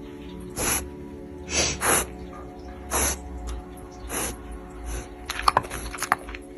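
Background music holding steady sustained tones, with about five short breathy bursts and a quick cluster of sharp clicks near the end.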